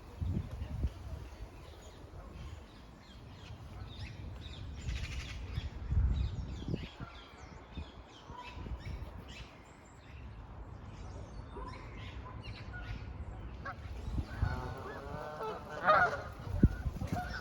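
Geese honking: scattered faint calls at first, then a run of several loud overlapping honks in the last few seconds.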